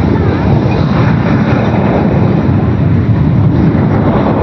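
Jet airliner engines running with a steady, loud rumble.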